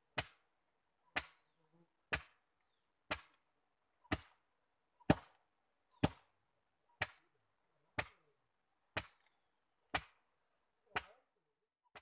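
Wooden sago pounder (pangkur) striking the pith of a split sago palm trunk, one sharp blow about every second in a steady rhythm, breaking up the pith to extract the sago starch.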